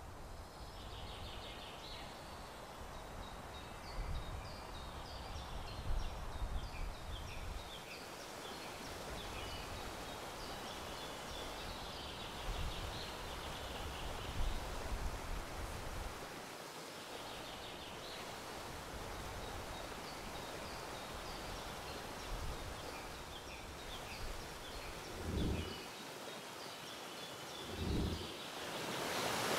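Quiet outdoor ambience: a steady hiss with faint, repeated bird chirping and low rumbles, like wind on the microphone, in the first few seconds. Two soft thumps come near the end, and rushing water swells up at the very end.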